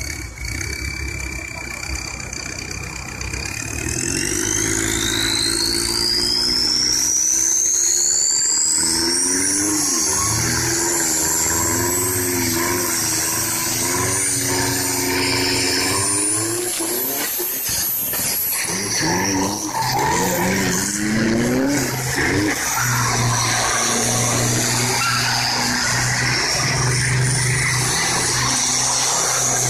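Toyota Hilux pickups drifting: engines revving up and down with tyres screeching and skidding. A high whine climbs steadily in pitch over the first several seconds.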